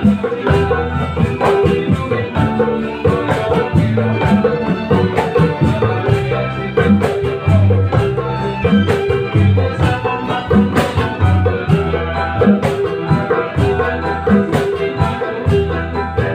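Band music with a kendang drum beating a steady rhythm over bass and other instruments.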